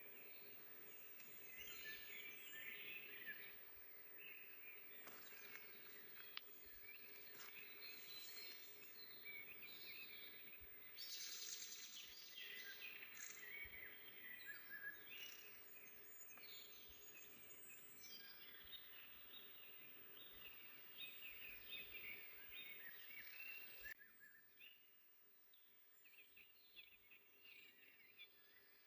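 Several small birds singing and chirping in a forest, with many short, overlapping calls and trills. The song is faint throughout. About three-quarters of the way through it drops suddenly to quieter, sparser calls.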